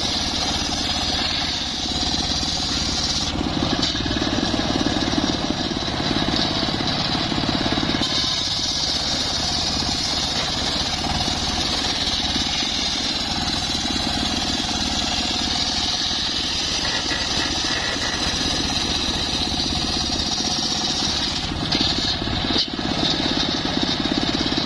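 Homemade circular saw bench ripping a timber plank lengthwise, the blade running steadily through the wood with a high-pitched cutting whine.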